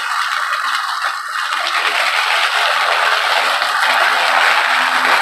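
Ryobi 40V brushless cordless electric lawn mower running, its blade cutting grass and picking up fallen leaves into the bag: a steady rushing noise with leaves rattling through it, growing louder in the last couple of seconds as the mower comes closer.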